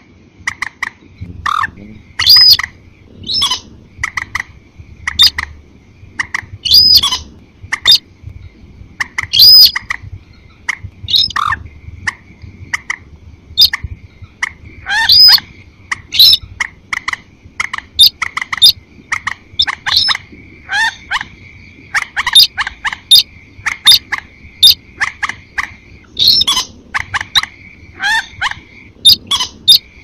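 Bird-lure recording of rail calls, sintar crake mixed with moorhen (mandar), made for night mist-netting. The calls come as many short, sharp notes in quick, irregular succession, some gliding in pitch, over a faint steady high tone.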